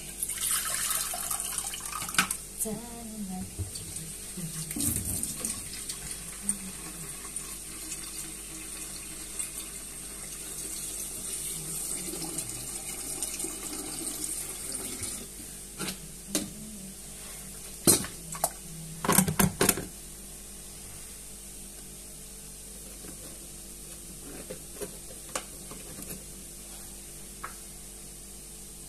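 Kitchen tap running into a sink for about fifteen seconds, then a few sharp clattering knocks of dishes or pans.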